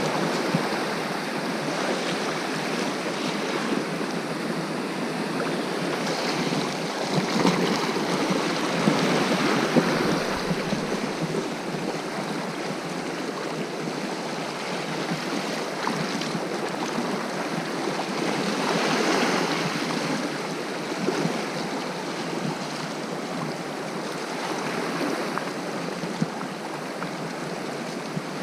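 Sea waves washing on the shore, a steady wash with louder surges about a third of the way in and again past the middle.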